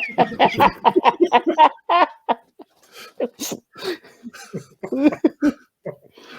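People laughing: a burst of quick, repeated laughter at first, trailing off into scattered chuckles.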